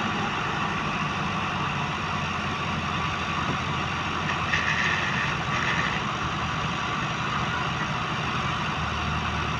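Diesel tractor engines running steadily at idle, with two short higher-pitched sounds a little under halfway through.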